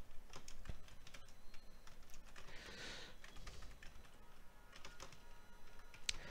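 Computer keyboard keys tapped faintly at an irregular pace as a file name is typed.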